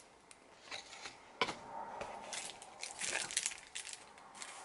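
Foil wrapper on a dark chocolate bar crinkling and tearing as it is unwrapped by hand, with a few sharp clicks before it and the loudest crinkling about three seconds in.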